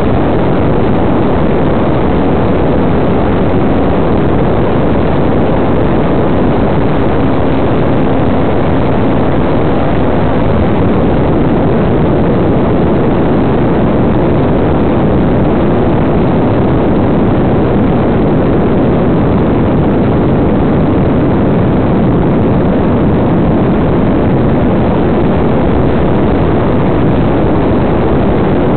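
RC model airplane in flight, heard from on board at the tail: a loud, steady rushing drone of the propeller and motor mixed with airflow over the microphone.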